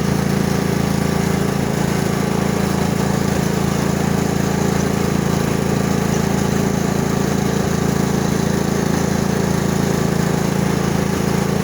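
Riding lawn mower's engine running steadily at a constant speed as it drives along.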